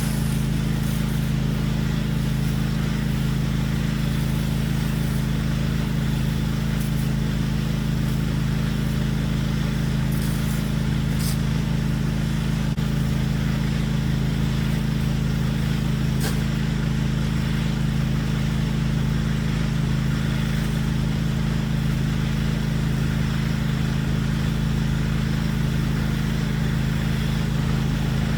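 Pressure washer's engine running steadily at a constant speed, a continuous low drone.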